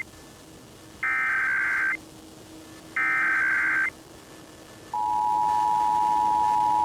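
Emergency Alert System SAME header: two bursts of buzzy digital data tones, each about a second long and a second apart. About five seconds in, the steady two-tone EAS attention signal (853 and 960 Hz) starts, marking the opening of an alert, here the National Periodic Test.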